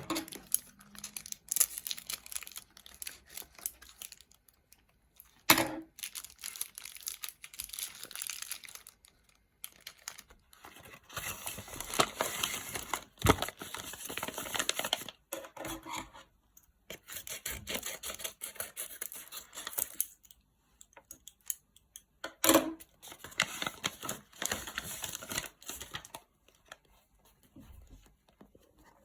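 Hubba Bubba bubble gum wrappers being crinkled and torn open by hand, in stretches of rustling with a few sharp knocks or taps in between.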